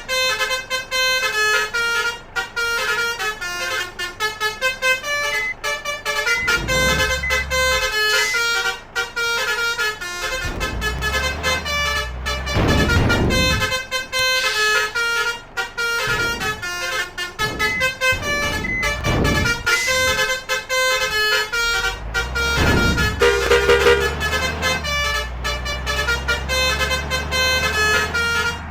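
Indonesian bus basuri 'telolet' musical horns playing quick melodic runs of short notes, over the low rumble of bus engines that swells and fades several times.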